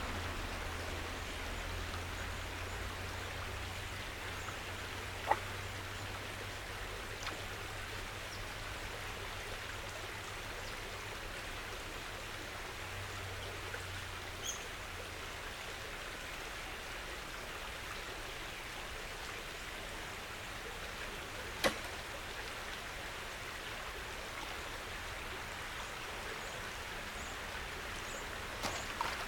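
Steady creek ambience, an even hiss of water and open air, with a faint low hum that fades about halfway and two brief sharp clicks, one about five seconds in and one about twenty-two seconds in.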